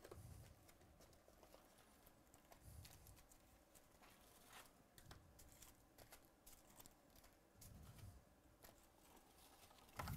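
Faint handling of wrapped trading-card packs and their cardboard hobby box as the packs are lifted out and stacked on a tabletop: light rustles and clicks, with soft bumps every few seconds and a louder knock near the end.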